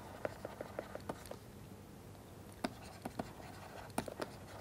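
Stylus writing on a pen tablet: faint, irregular taps and scratches of the pen tip, with a pause of about a second in the middle.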